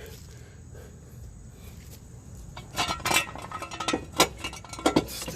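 Metal clinking and clanking as steel car-jack gear is handled, starting about halfway through, with a couple of sharper knocks near the end.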